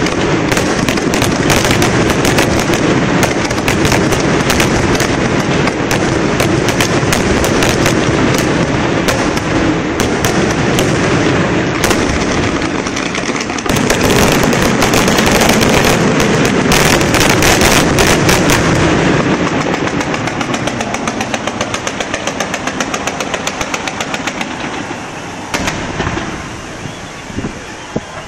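Fireworks display in a dense, rapid barrage of bangs and crackling, easing off over the last several seconds with a couple of separate bangs near the end.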